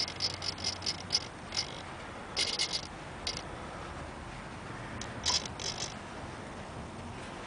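Home-made bait boat's hopper release mechanism working in short mechanical bursts: a run in the first couple of seconds, a few more in the middle, and another cluster about five and a half seconds in.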